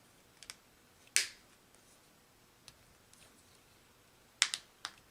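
Plastic clicks and snaps of a Honda flip-key fob's case being pressed back together by hand: a sharp snap about a second in and a quick cluster of clicks near the end.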